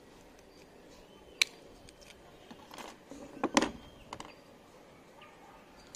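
Hard plastic clicks and knocks as the case of a motorcycle alarm remote is fitted back together: one sharp click, then a cluster of clicks and knocks about halfway through, and one more click shortly after.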